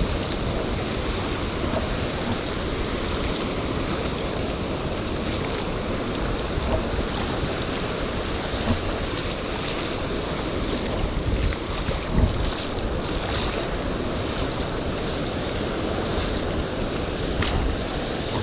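Ocean surf washing in the shallows with wind buffeting the microphone, a steady rushing noise with a few brief louder gusts about two-thirds of the way through.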